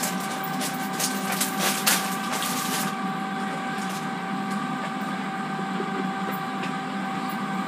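Air fryer running, a steady whirring hum with a few held tones. A plastic zip-top bag crinkles over the first three seconds as it is handled and set down.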